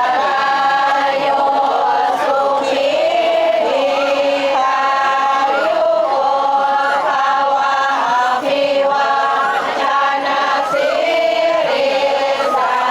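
Group of voices chanting or singing in unison, with long held notes that bend and slide in pitch.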